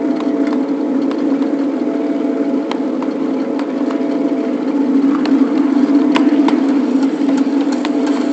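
7½-inch gauge ride-on backyard railroad locomotive running along the track: a steady drone with scattered sharp clicks, rising a little in level about five seconds in.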